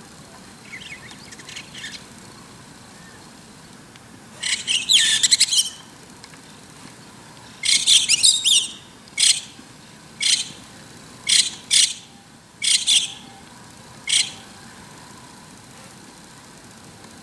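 White-cheeked starling singing. A few faint high notes at first are followed by two loud bursts of rapid, squeaky notes, then a string of short single calls about a second apart.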